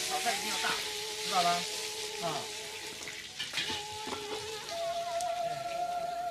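Food sizzling and frying in a pot over a small open fire, with stirring. A soft melody with long held and sliding notes plays under it.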